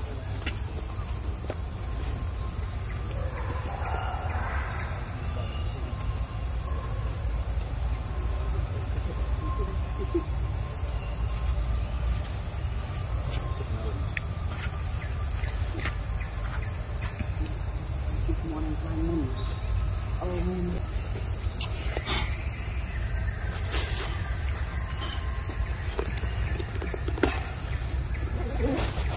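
Insects droning in one steady high-pitched chorus over a low steady rumble, with a few faint clicks.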